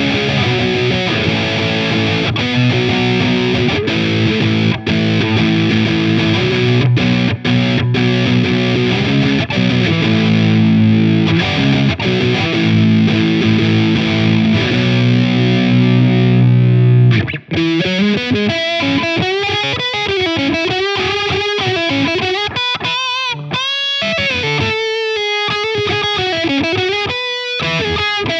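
Donner Hush-X headless electric guitar played with overdrive, its pickups in passive mode: about seventeen seconds of distorted chugging chords and riffs, then a brief break. After that come single-note lead lines with string bends and vibrato.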